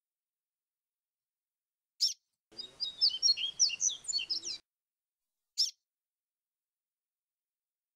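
Papa-capim seedeater singing a quick phrase of varied whistled notes for about two seconds. A single short chirp comes just before the phrase and another about a second after it.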